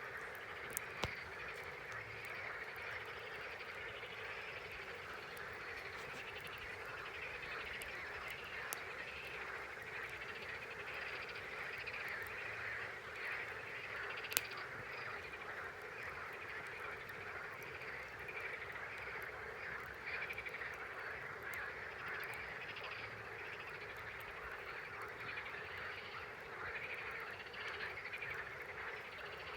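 A dense chorus of frogs calling continuously, a steady mass of overlapping croaks. A few sharp pops from a campfire cut through, the loudest about halfway through.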